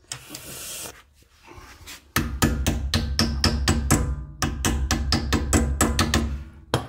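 A short hiss, then music with a steady percussive beat and a bass line starting about two seconds in.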